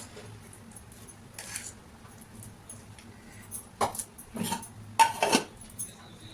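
Kitchen utensils and dishes clinking: a few short clinks and knocks in the second half, the loudest about five seconds in.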